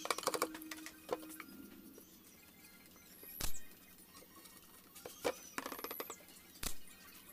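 Scattered light clicks and rattles, with two sharper knocks about three and a half and almost seven seconds in, over faint background music.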